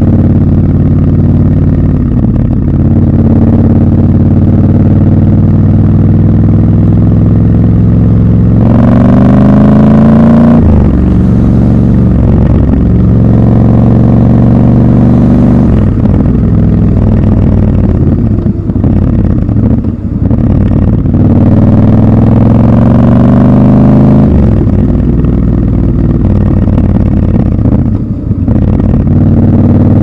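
Triumph Scrambler 1200 XC's 1200 cc parallel-twin engine running under the rider, rising in pitch as it accelerates, most strongly about nine to ten seconds in and again near the end. The pitch drops back at gear changes, about ten, twenty and twenty-eight seconds in.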